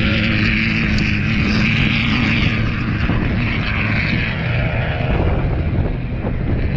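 A loud, steady engine drone with a low rumble under it that rises and falls.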